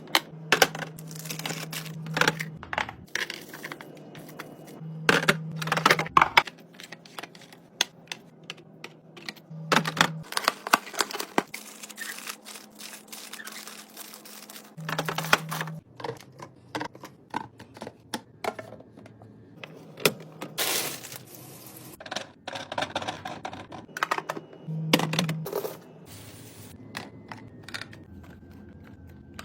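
Containers, bottles and packaging being handled and set onto fridge shelves: a long irregular string of clicks, taps and knocks, with a short low hum coming and going several times.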